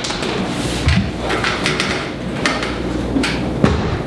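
Irregular wooden knocks and clatters from an old wooden multi-pane window frame being handled and bumped against the wall as it is lifted into place. There are half a dozen separate knocks, the loudest near the end.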